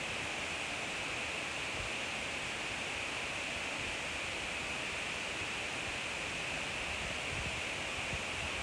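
Kebab and shrimp skewers sizzling on a grill: a steady, even hiss.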